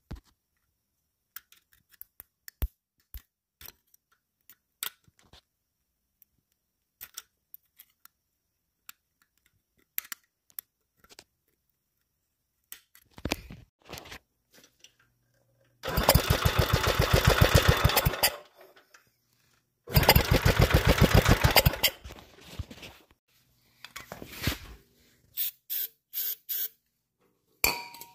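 Wheel Horse garden tractor engine being cranked over by its starter in two stretches of about two and a half seconds, with a fast, even pulsing, then a few shorter bursts, without catching. Before that, only scattered light clicks and knocks of handling.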